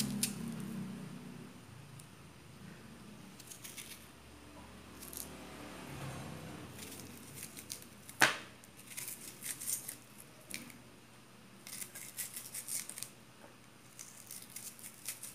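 Kitchen knife slicing a red onion held in the hand, crisp cuts coming in short runs of a second or so with pauses between. One sharper click a little past halfway.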